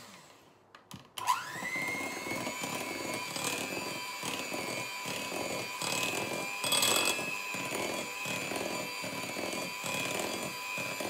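Electric hand mixer starting up about a second in, its whine rising as the motor spins up, then running steadily as its beaters whisk egg, sugar and butter in a glass bowl.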